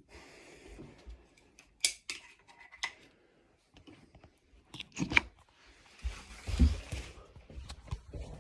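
Handling noises: a few sharp clicks and knocks, then a rustle with a low thump about six to seven seconds in.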